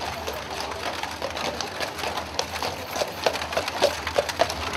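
Horse's hooves clip-clopping on brick pavement as it pulls a two-wheeled carriage with wooden spoked wheels, a steady run of sharp knocks.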